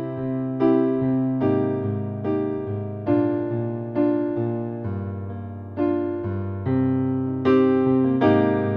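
Solo piano music with no singing: a sustained bass under chords struck about once every 0.8 seconds, each ringing out and fading before the next.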